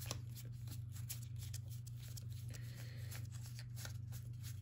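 A stack of Pokémon trading cards being flipped through by hand, a quick, irregular run of soft papery card-on-card flicks over a steady low hum.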